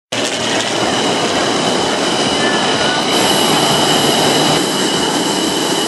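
Engines of a formation of small propeller aerobatic aircraft flying overhead: a loud, steady noise with a faint steady high tone running through it.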